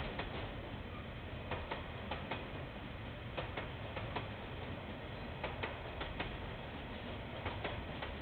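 Train wheels clicking over rail joints, mostly in quick pairs as each bogie crosses, over a steady low rumble of the passing train, heard through a security camera's narrow-band microphone.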